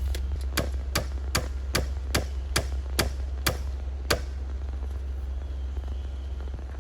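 Hammer blows on wood in a quick, even run of about ten strikes, roughly two and a half a second, that stops about four seconds in. A steady low rumble lies underneath.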